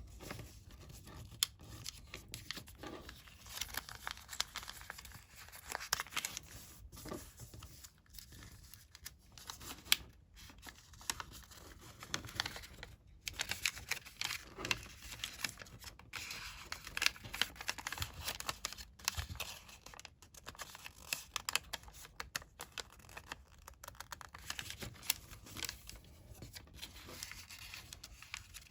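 A sheet of colored origami paper being folded and creased by hand: continual rustling and crinkling broken by sharp crackles as folds are pressed flat.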